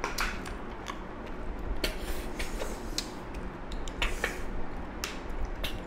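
Two people eating by hand from steel plates of rice with snail and pork curry: scattered sharp mouth smacks, clicks and sucking sounds of chewing, with fingers scraping and tapping on the metal plates.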